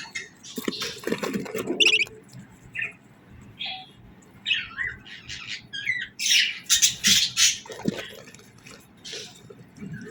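Small birds chirping and calling in quick, irregular short notes, with a burst of louder, harsher calls about six to seven seconds in.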